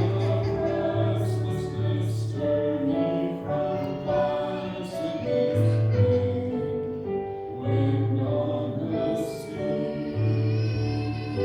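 A song with voices singing over instrumental accompaniment, with steady held bass notes beneath the melody.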